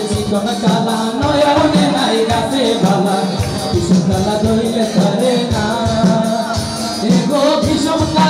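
A man singing through a microphone and amplifier, with live band accompaniment keeping a steady beat.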